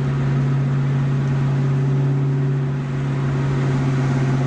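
Car driving at a steady speed, heard from inside the cabin: an even, low engine drone with road noise.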